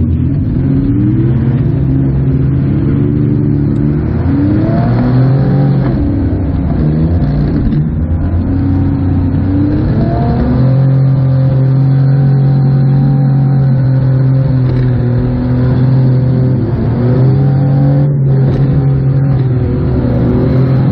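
Demolition derby minivan's engine revving up and down as it is driven, its pitch rising and falling again and again, heard from inside the stripped-out cab.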